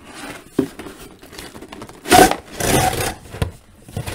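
Cardboard toy box being opened by hand: a few light taps and handling noises, then about two seconds in a loud scrape and rasp as the cardboard flaps and sleeve are pulled apart.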